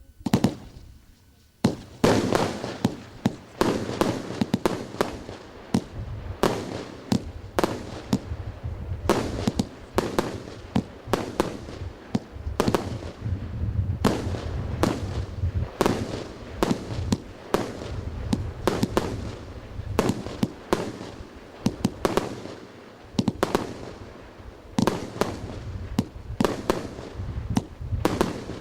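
Consumer multi-shot firework battery (cake) firing: a rapid, nearly continuous string of sharp bangs and bursts, several a second, after a couple of opening shots and a short pause.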